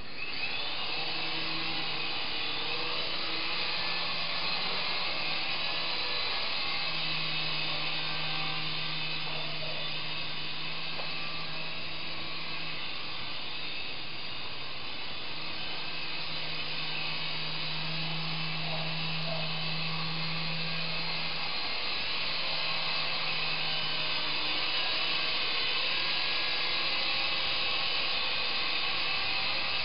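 Small twin-rotor (coaxial) remote-control helicopter in flight: its electric motors and blades whir steadily after spinning up at the start, with a low hum whose pitch shifts up and down a little.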